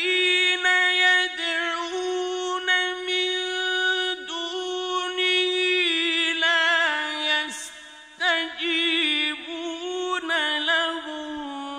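A man reciting the Quran in the melodic mujawwad style: long held, ornamented notes sung out in one voice, with a quick breath a little after halfway before the phrase resumes.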